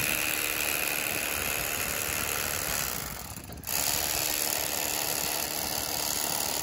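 Electric fillet knife running, its two serrated reciprocating blades buzzing as it cuts along a northern pike fillet's rib cage. It cuts out briefly about three seconds in, then runs steadily again.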